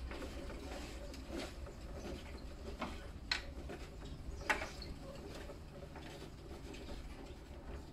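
Large cat exercise wheel turning slowly under a walking cat, giving a few short, sharp clicks over a low steady hum.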